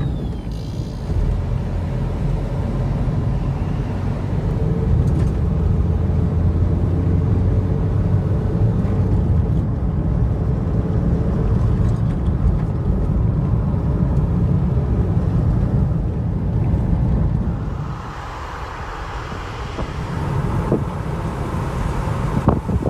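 Steady low rumble of a vehicle driving. About eighteen seconds in it gives way to a lighter hiss, with a few knocks near the end.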